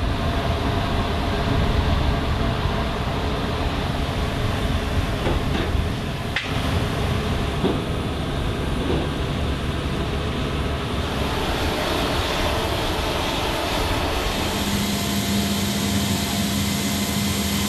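Steady mechanical rumble of engines on an airfield, with a few cuts. About two-thirds of the way in it gives way to a steady low hum with a thin higher tone.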